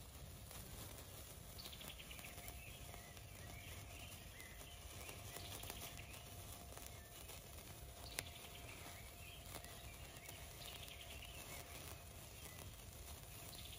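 Faint fizzing of a burning sparkler. A songbird sings a short falling trill about five times, a few seconds apart, and there is one sharp click about eight seconds in.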